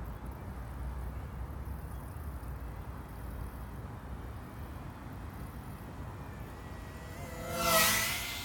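FPV racing quadcopter's propellers whining as it flies low past, swelling quickly near the end and dropping in pitch as it goes by.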